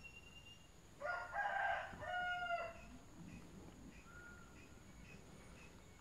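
A rooster crowing once, starting about a second in and lasting just under two seconds, over faint chirps that repeat about twice a second.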